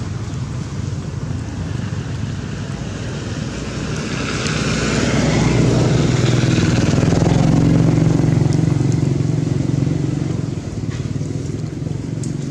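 An engine running, with a steady low drone that grows louder about four seconds in and eases off again after about ten seconds.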